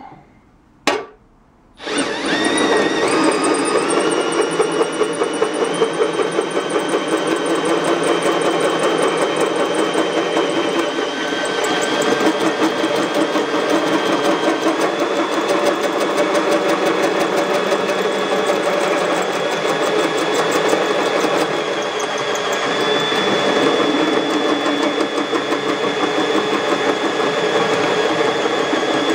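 Cordless drill driving a hole saw into a board. A short burst comes about a second in, then from about two seconds on the drill runs continuously under load as the saw cuts, with a fast, even chatter and a whine that creeps up in pitch.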